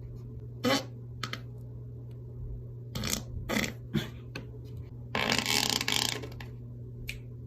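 Farts: several short noisy puffs, then a louder one lasting about a second, over a steady low hum.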